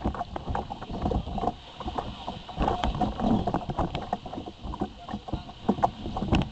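Water splashing and slapping against the hull of an Ocean Kayak Malibu Two XL sit-on-top kayak under sail, with irregular knocks.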